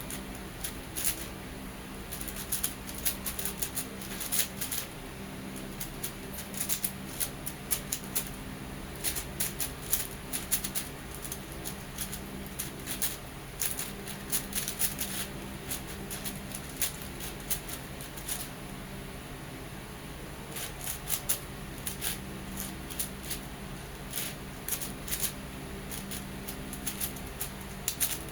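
Non-magnetic MoYu Meilong 6x6 speedcube being turned fast in a solve: irregular flurries of plastic clicking and clacking from the layers, broken by short pauses.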